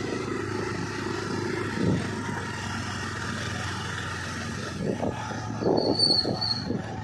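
Motorcycle engine running steadily, with a brief high, thin tone about six seconds in.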